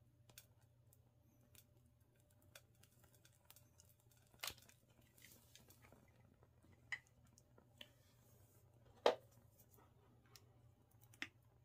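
Near silence with a faint steady low hum, broken by a few short, sharp clicks and taps of small tools being handled, the loudest about nine seconds in.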